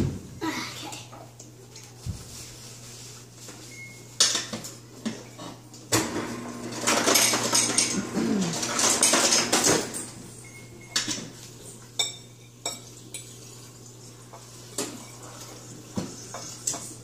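Metal fork clinking and scraping on a ceramic plate while eating, in short scattered clicks, with a sharp clink at the very start. A few seconds of louder hissing noise in the middle, over a steady low hum.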